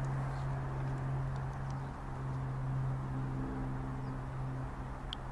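Steady low drone of distant highway traffic from Interstate 80, with one short high chirp about five seconds in.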